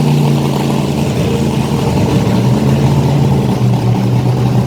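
A vehicle engine idling steadily and loudly, its pitch holding near-constant.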